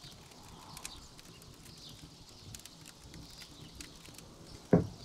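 Quiet background with faint, irregular crackling clicks, and one brief, louder low sound near the end.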